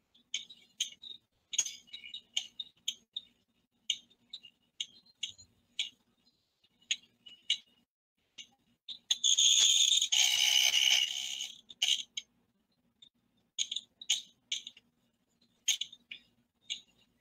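Irregular small clicks and taps, a few a second, over a faint steady hum. A louder rustling hiss lasts about three seconds around the middle.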